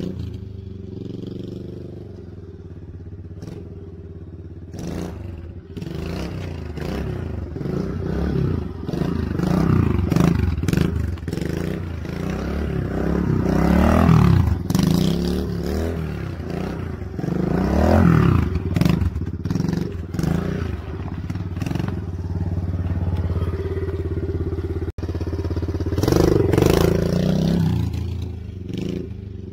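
Small dirt bike engine revving up and down over and over, with several loud throttle surges as the front wheel is lifted into wheelies, easing back toward a lower drone between them.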